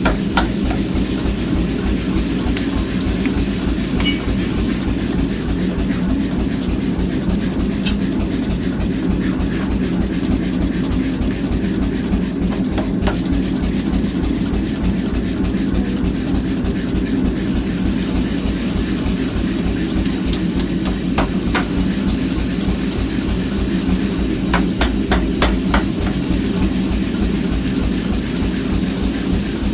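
Blacksmith's power hammer running with a steady motor hum and fast, evenly spaced blows on iron being forged. A few heavier separate strikes come near the end.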